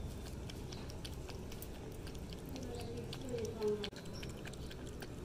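A cat lapping milk from a steel plate: a run of small wet clicks from its tongue. A brief low voice sounds about three and a half seconds in and is the loudest moment.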